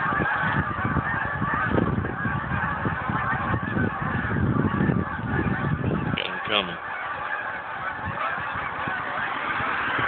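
A flock of hundreds of geese flying overhead and honking without pause, the calls overlapping into a dense, constant clamour. A low, irregular rumble runs underneath and thins out about two-thirds of the way through.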